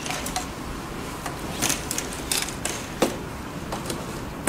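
Scattered light clicks and taps from hands handling thin wires and a small sensor on a metal work surface, over a steady hiss.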